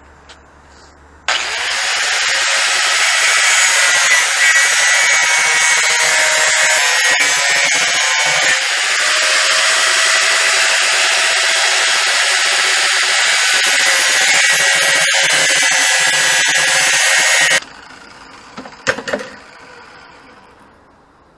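Corded angle grinder running its disc into square steel tubing. The loud, steady grinding starts abruptly about a second in and cuts off sharply near seventeen seconds. A few metal clanks follow as the steel tube is handled.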